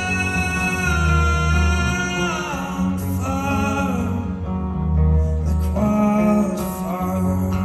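A rock band plays live: a male singer holds long sung notes that slide between pitches, over electric guitar and a steady bass line, with a few short crashes from the drums.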